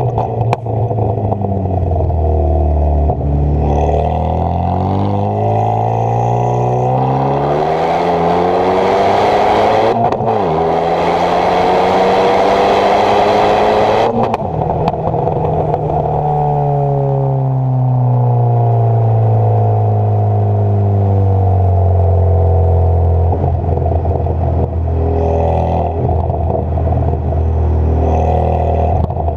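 Renault Sport Mégane 225's turbocharged 2.0-litre four-cylinder through a decatted stainless exhaust with a centre silencer and no back box, on a stage 2 remap. It pulls hard with the revs climbing, with a rushing hiss under power. The revs drop at a gear change about ten seconds in and climb again, then it lifts off and the revs fall away slowly and settle low, with a few sharp crackles near the end.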